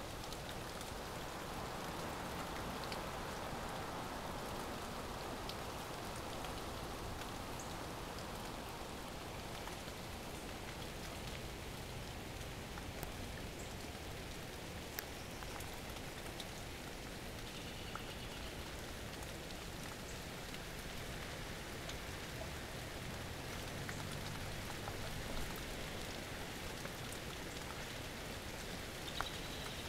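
Steady hiss of rain falling during a severe thunderstorm, with a few faint scattered drop ticks.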